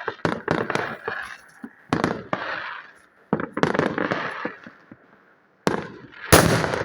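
Thrown firecrackers (petards) going off: clusters of sharp bangs and crackling, a short lull, then one very loud bang near the end.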